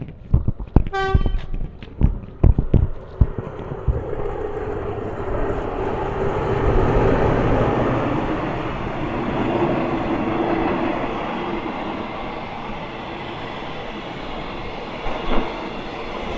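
A train on the railway line gives a short horn blast about a second in, with sharp knocks over the first few seconds, then passes with a steady loud rumble of wheels on rails for the rest.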